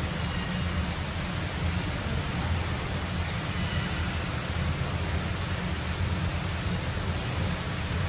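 Steady rushing of running water with a low rumble underneath.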